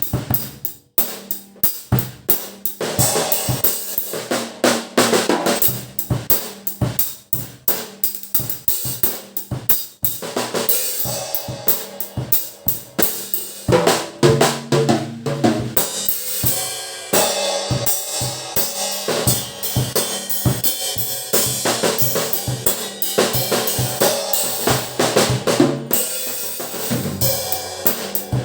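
Acoustic drum kit played continuously: a run of rapid beats on snare, bass drum, hi-hat and cymbals, with steady dense strokes throughout.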